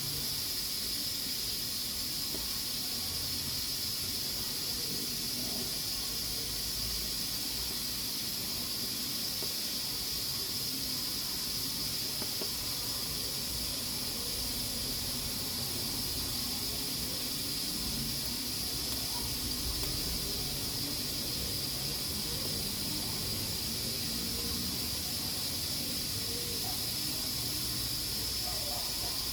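Pressure cooker on the boil, its valve venting steam in a steady, high hiss that holds an even level: the cooker is at full pressure cooking beans.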